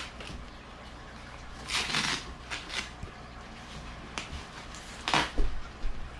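Packing paper from a computer's box being rustled and pulled out in several short bursts, with a couple of low bumps near the end.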